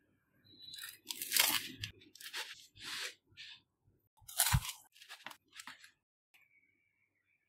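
Knife cutting through a baked pizza's crisp, charred crust on a wooden board: a run of short crunching strokes, the loudest about four and a half seconds in, with a thud.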